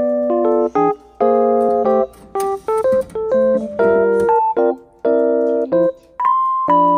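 Background piano music: a gentle keyboard melody over changing chords.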